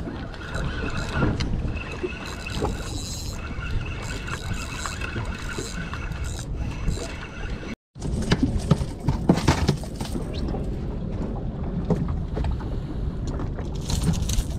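Small motorboat underway while trolling: the engine runs steadily under dense water and hull noise. The sound cuts out completely for a moment about eight seconds in.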